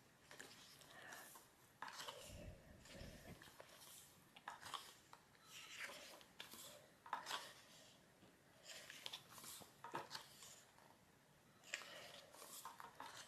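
Pages of a glossy photo book being turned one after another: a run of short, soft paper swishes and rustles, with a brief low bump about two seconds in.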